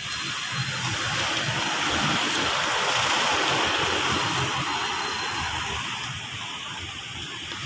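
A road vehicle passing on a wet street: tyre hiss swells to a peak about three seconds in, then fades away.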